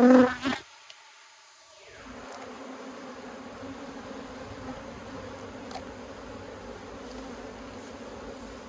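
Honeybees buzzing steadily around an opened hive, a continuous even hum. The buzz drops out for about a second near the start.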